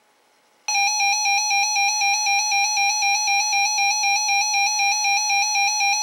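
A NOAA weather alert radio's alarm going off for a Required Weekly Test. A buzzy electronic beep starts suddenly just under a second in and holds one pitch, pulsing rapidly at about four pulses a second.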